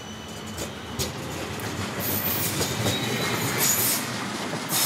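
Midland Metro CAF Urbos 3 tram passing close by: a steady rumble of steel wheels on rail, two sharp clacks over rail joints about a second in, then short bursts of high-pitched wheel squeal that grow louder toward the end.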